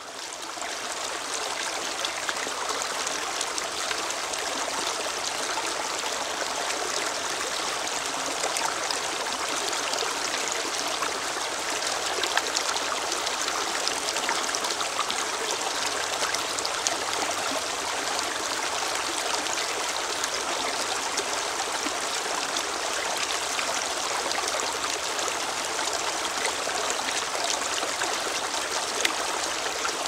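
Shallow rocky stream rushing and splashing over boulders in small cascades, a steady rush of water that fades in over the first second.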